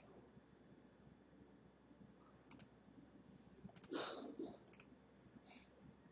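Faint computer mouse clicks, about five, spaced unevenly, with a brief louder rustle about four seconds in.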